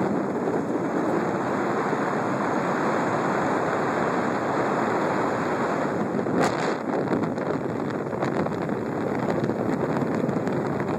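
Steady wind rush buffeting the microphone of a camera moving along a highway at road speed, mixed with road noise. A brief click about six and a half seconds in.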